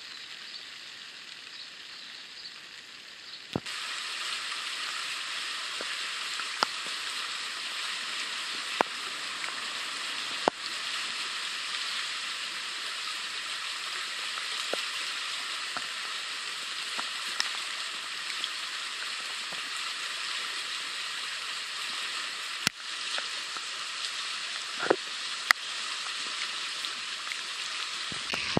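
Rain falling on a plastic tarp, then, after a sudden break about three and a half seconds in, the steady louder rush of a storm-swollen creek running fast. A few short sharp ticks come through it now and then.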